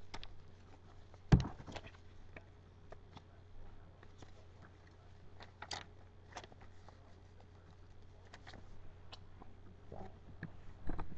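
Handling noise close to a webcam microphone: scattered light taps and clicks with one louder knock about a second in, over a low steady hum.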